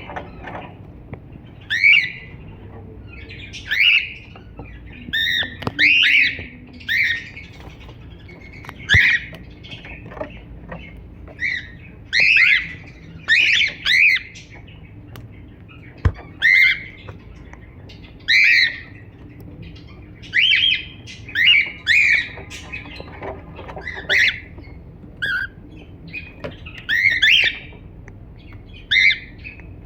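A cockatiel giving short chirping calls, one every second or two, each a quick sweep up and down in pitch, some coming in quick pairs.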